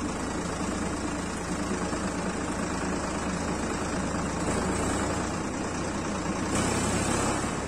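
Tractor's diesel engine running steadily while the tractor drives along the road, heard from the driver's seat close to the upright exhaust. The engine note shifts slightly about six and a half seconds in.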